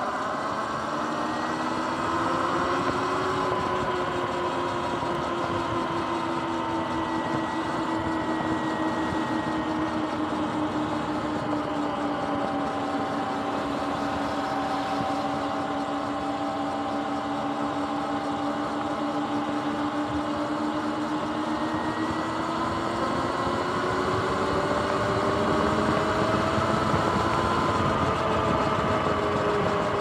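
Sur-Ron X electric dirt bike riding along, its motor and drive whining at a pitch that follows the speed. The whine rises in the first few seconds, eases down through the middle and climbs again near the end, over a steady rush of noise.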